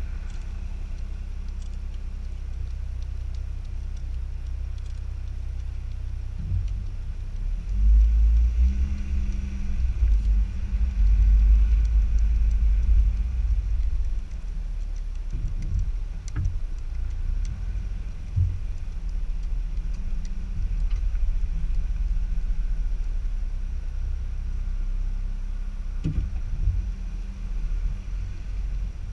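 Car moving slowly, heard from a camera mounted on the outside of the body beside the front wheel: a steady low rumble of engine and tyres that swells louder from about 8 to 14 seconds.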